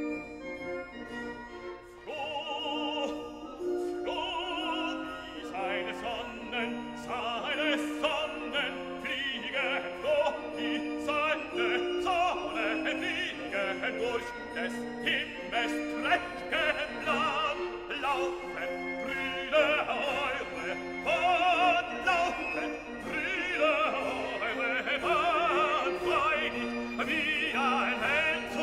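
Background music: a classical operatic voice sings with wide vibrato over sustained accompaniment.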